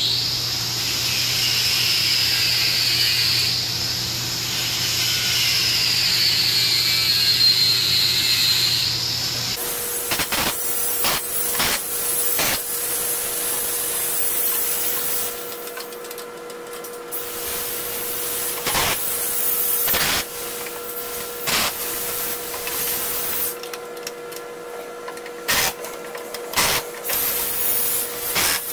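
Wrench-and-socket work on the vine trimmer's carriage bolts. For about the first ten seconds there is a steady whirring noise, which cuts off abruptly. After that come scattered clinks and knocks of the hand tools on the metal cutter frame, over a steady hum.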